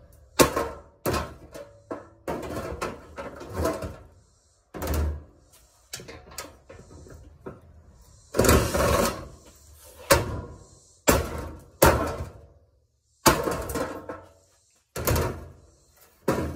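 Irregular clanks and knocks of washing-machine parts being handled during dismantling, about a dozen, some ringing briefly like sheet metal, with a longer scraping clatter about halfway through.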